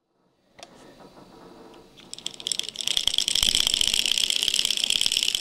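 Rapid, steady mechanical rattle of a small motorised mechanism. It starts faintly about half a second in and builds to a fast, even clatter of dense clicks about two seconds in.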